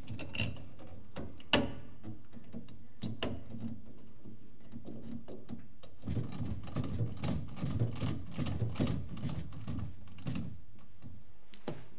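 Metal clicks and rattles of a hand tool working the fixing screw of a boiler's new plate heat exchanger back into place, with one sharp knock about a second and a half in and a dense run of small clicks in the second half.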